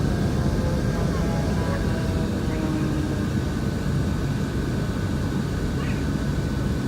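Steady low engine rumble from a vehicle or aircraft, with faint voices in the background.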